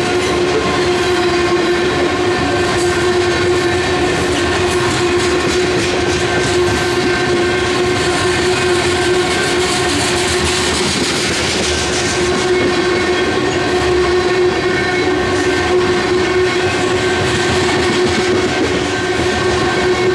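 Covered hopper cars of a freight train rolling past close by: steady wheel-on-rail rumble and rattle, with a steady whining tone held over it throughout.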